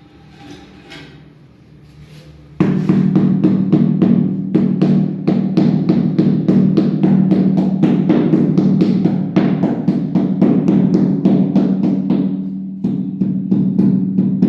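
Music with a steady drum beat and a held low bass tone, starting suddenly about two and a half seconds in after a short stretch of faint background sound.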